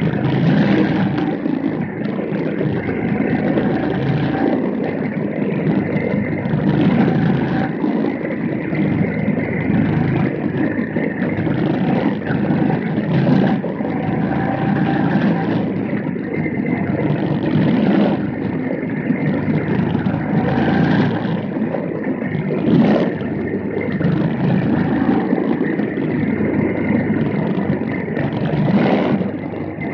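Several quarter midget race cars' small engines running at racing speed in a continuous buzz that swells and fades over and over.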